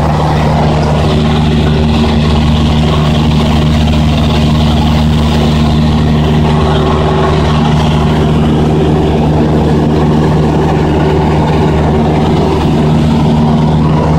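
Cessna 172's piston engine and propeller running steadily in flight, heard inside the cabin as a loud, even drone with a steady hiss over it.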